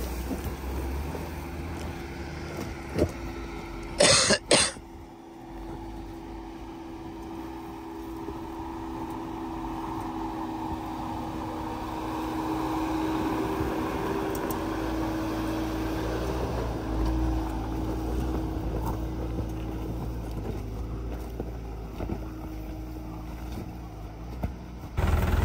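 Off-road 4x4's engine running steadily, louder in the middle. A short, loud double noise about four seconds in.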